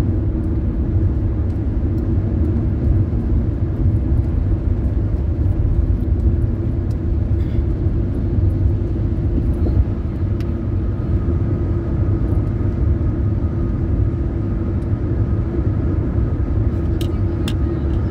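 Steady road and engine noise inside a car cruising at highway speed, with a few faint clicks near the end.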